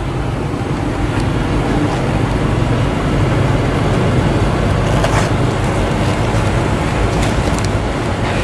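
Steady road traffic noise from passing cars and buses, with a few short clicks and rustles as a bicycle saddle bag is handled.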